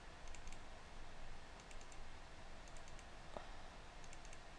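Faint computer mouse clicks, a few in quick pairs, as folders are double-clicked open, over a low steady hiss.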